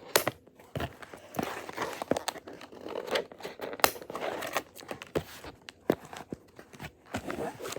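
Toy packaging being pulled apart by hand: crinkling and tearing, with many sharp clicks and snaps.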